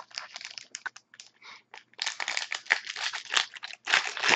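Plastic trading-card pack wrapper crinkling and tearing as a hockey card pack is opened by hand, sparse at first, then continuous and louder from about halfway through.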